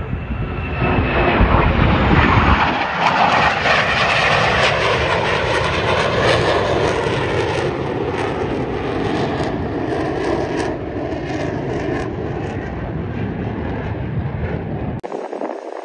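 Airplane engine noise as an aircraft flies past: it builds to a peak about two seconds in, then slowly eases. The low rumble cuts out abruptly near the end.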